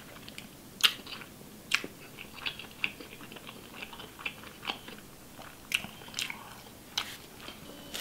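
Close-miked chewing with the mouth closed: scattered soft wet mouth clicks and smacks, with sharper ones about one and two seconds in.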